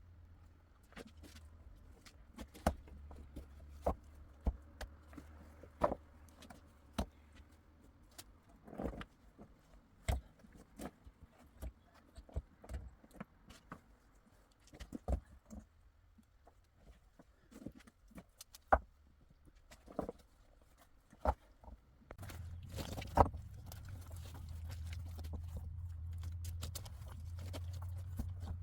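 Scattered sharp clicks and knocks, irregular and a few every second or two, over a low rumble that grows louder about 22 seconds in.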